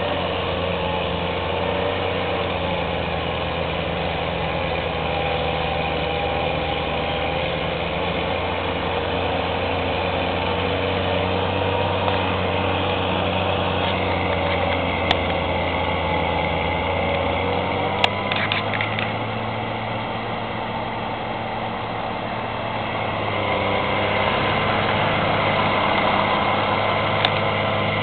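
Steady drone of a loader-mounted Larue rotary snowblower working, engine and rotor running under load as it casts snow; the pitch shifts about two-thirds of the way through. Near the end a car passes close by, and a few faint sharp clicks stand out.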